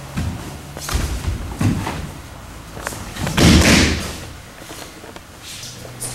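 Thuds of feet and bodies on a dojo mat during an aikido throw: a few light thumps, then about three and a half seconds in a louder, longer thump as the thrown partner takes a breakfall onto the mat.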